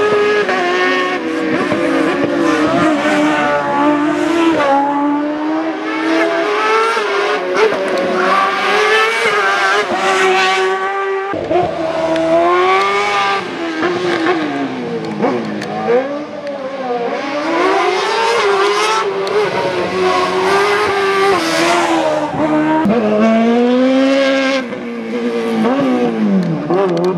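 Competition car engine driven hard through a slalom course, its pitch swinging up and down every second or two as it accelerates, lifts and brakes between the gates, with a sharp break in the note about eleven seconds in.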